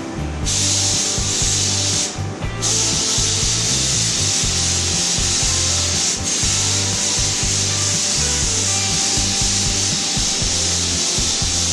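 Compressed-air gravity-feed paint spray gun hissing steadily as it sprays paint. The trigger is let off for about half a second around 2 s in and again very briefly near 6 s.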